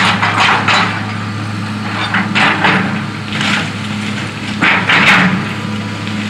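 Hitachi EX200 hydraulic excavator's diesel engine running steadily while its arm pushes into a wood-frame house, with repeated cracking and splintering of timber and siding. The loudest crunch comes about five seconds in.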